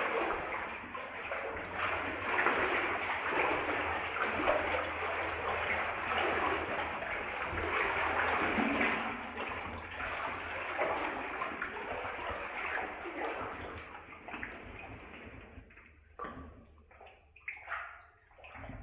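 Footsteps wading through water in a flooded mine adit, with steady sloshing and splashing. About three-quarters of the way through it dies down to a few separate small splashes and drips.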